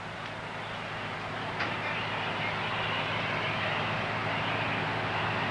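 Fire apparatus engines running while pumping water: a steady low hum under a hiss that grows gradually louder.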